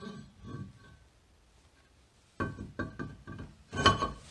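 Cast iron brake rotor (the larger Focus RS disc) knocking against the hub and wheel studs as it is worked into place, each knock leaving a short metallic ring. A faint ring in the first second, then a quick run of knocks from about halfway, the loudest near the end.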